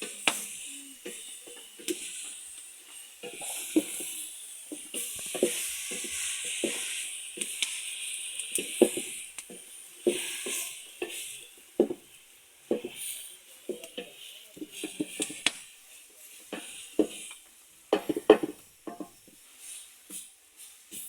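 Food sizzling in a pan, the hiss swelling and fading in patches as it is stirred, with frequent irregular knocks and scrapes of a utensil against the pan.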